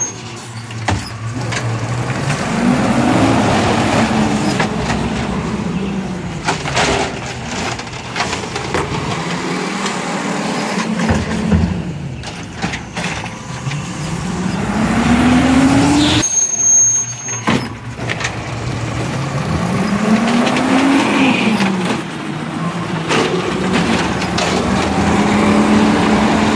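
Automated side-loader garbage truck working its hydraulic arm: the engine revs up and falls back several times as the arm grabs, lifts and empties curbside carts, with a few sharp knocks and clanks.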